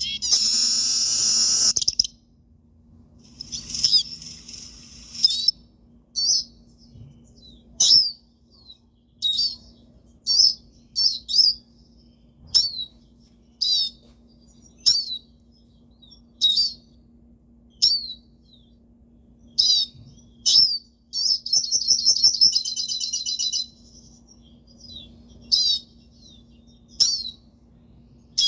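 Hooded siskin singing: rapid twittering song phrases at the start and again about three-quarters of the way through, with short, sharp downward-sliding call notes about once a second in between. A faint steady low hum runs underneath.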